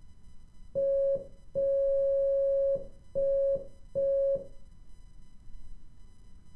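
Morse code beeps at one steady pitch: a short, a long and two short tones (dit-dah-dit-dit), the letter L.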